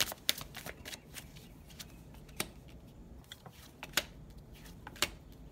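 Oracle cards being handled and laid down on a table: a scatter of sharp card snaps and slaps, the loudest about two and a half, four and five seconds in.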